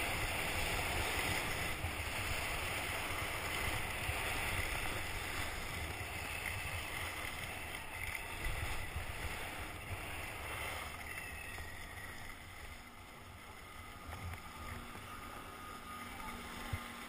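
Skis hissing over packed snow with wind rushing over the camera's microphone. The noise eases off after about ten seconds as the skier slows to a stop.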